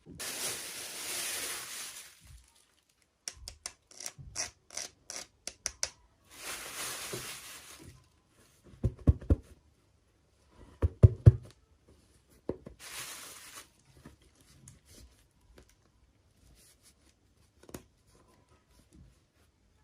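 Toy packaging being handled and opened: three spells of rustling, tearing wrapping, a quick run of small clicks between them, and a few dull thumps near the middle as pieces are set down or knocked.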